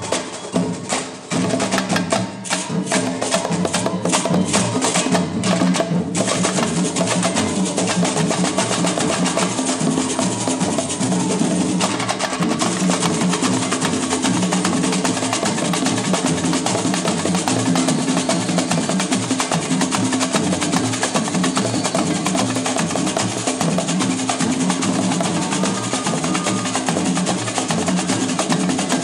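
Live samba percussion played on two tall drums with a fast, busy rhythm. For the first six seconds or so the strokes come as sharp separate hits, then the playing settles into a dense, continuous groove.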